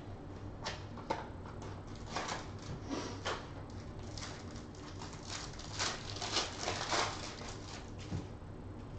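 Clear plastic wrapper on a pack of trading cards crinkling as it is pulled open and stripped off the cards. The crinkling is a run of quick crackles that grows busiest and loudest in the second half and stops about a second before the end.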